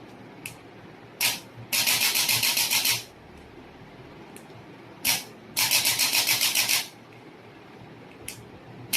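Electric chiropractic adjusting gun firing two bursts of rapid clicking impulses, about ten a second, each lasting just over a second and each preceded by a single sharp click about half a second earlier. It is set to medium speed.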